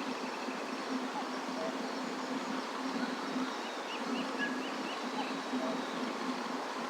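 Steady outdoor background noise with a low hum, and a few small bird chirps, including a quick run of about six notes about four seconds in.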